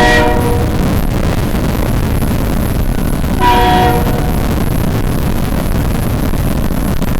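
Train horn blast cutting off about half a second in, then a loud steady rumbling noise of a passing train, with a second short horn blast about three and a half seconds in.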